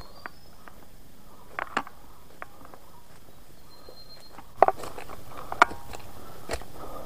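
Hikers' footsteps on a forest trail: irregular clicks, snaps and knocks over a steady low hiss, with the sharpest knocks about two-thirds of the way through.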